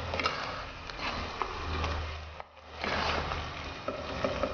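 A spatula stirring and scraping a thick methi-coconut masala as it fries in a nonstick pot, over a steady sizzle with occasional light knocks against the pot.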